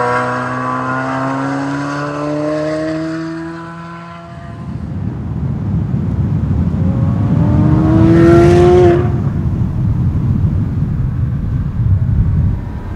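2023 Chevrolet Corvette Z06's 5.5-litre LT6 flat-plane-crank V8 pulling hard, its pitch rising steadily for about four seconds before fading. A rumble of road and wind noise follows, and the engine revs up again, loudest around eight seconds in, then breaks off about a second later.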